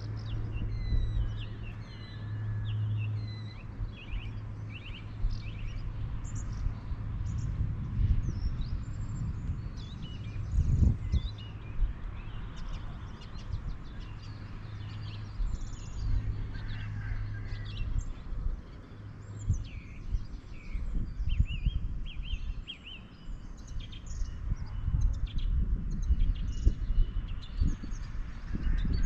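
Many birds chirping and singing, with short calls coming thick and fast, over a low, uneven outdoor noise. About eleven seconds in there is one louder low thud.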